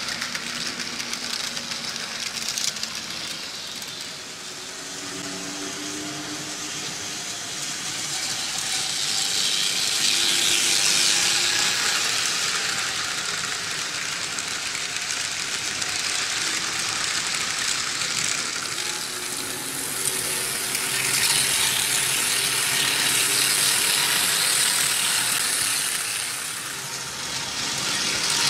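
Vintage Märklin H0 model trains running on tinplate M-track: a steady metallic rattle of the wheels on the track with a faint motor hum. It grows louder as trains pass close, about ten seconds in and again from about twenty seconds.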